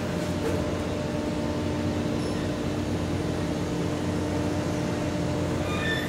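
Steady drone of ship diesel engines at work, with several even humming tones. A few faint high chirps step downward near the end.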